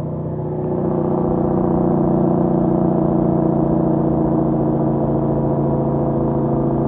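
Tractor-trailer diesel engine under engine braking on a downhill, a steady buzzing drone that grows louder about a second in and then holds.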